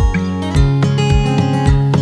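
Background music: strummed guitar over a steady beat of about two thumps a second.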